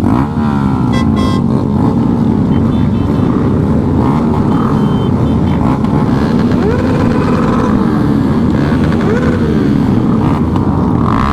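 Small motorcycle engines running on the move, their pitch rising and falling as the throttle opens and closes, over a steady rumble of wind on the microphone.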